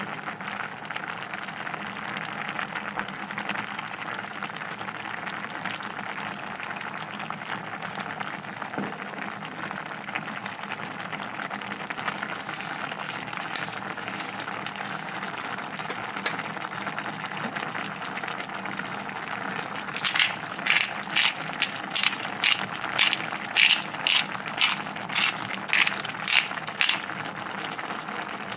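Thick cream sauce bubbling steadily in a frying pan. About two-thirds of the way in, a pepper mill is twisted over it in a run of about a dozen sharp grinding clicks, roughly two a second.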